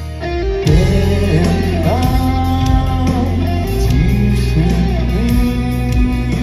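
Live metal band playing: a male lead vocal sung over electric guitar and bass guitar. After a softer opening, the full band comes in loud about a second in.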